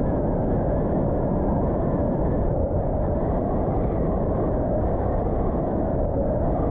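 Wind buffeting the microphone of a camera on a moving bicycle: a steady, low rushing noise.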